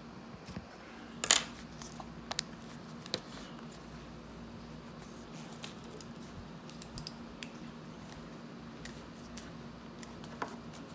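Small plastic clicks and ticks as a replacement ear cushion's ring is pried and pressed onto the clips of a Bose QuietComfort headphone earcup with a plastic pry tool. A few sharper clicks come in the first three seconds, the loudest about a second in, then lighter scattered ticks. A faint steady hum runs underneath.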